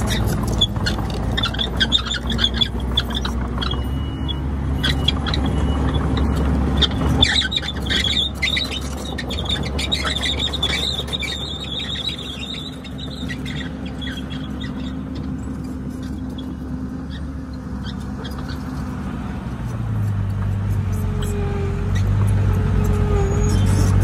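Komatsu D31PX crawler bulldozer at work: its diesel engine runs steadily, with a high squeal and repeated sharp knocks through the first half. The engine then goes quieter for several seconds and picks up louder again near the end.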